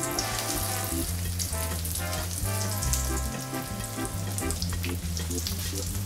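Breaded pork chops frying in hot oil in a pan, a steady crackling sizzle. Background music with held notes and a bass line plays under it.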